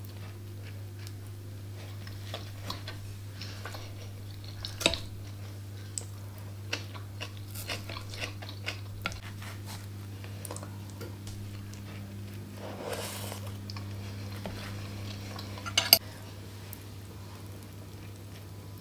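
Close-up eating sounds: toast being bitten and chewed, and a metal fork clinking against a plate. Two sharper clinks stand out, one about five seconds in and a louder one near sixteen seconds. A steady low hum runs underneath.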